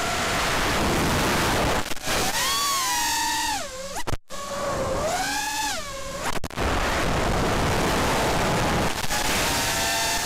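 Racing quadcopter's Cobra 2204 2300kv brushless motors on three-blade props, heard from the onboard camera: a steady rush of props and wind at speed. About two seconds in, the throttle is chopped and the motor whine falls and climbs back twice, with a brief dropout between. Full-throttle rushing returns by the last few seconds.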